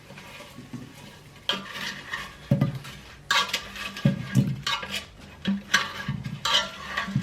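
Metal utensils clinking and scraping against plates and a pan as food is served, a string of about ten separate clatters.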